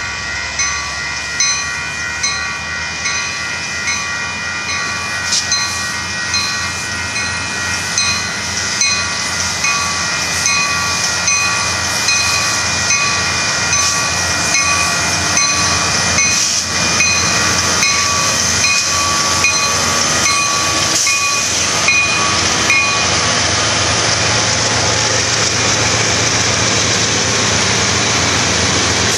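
Railroad crossing bell ringing rapidly and steadily as a Union Pacific freight train comes through the crossing. The rumble and rattle of the locomotives and freight cars builds up under the bell. The bell stops about 23 seconds in, leaving the steady noise of the passing freight cars.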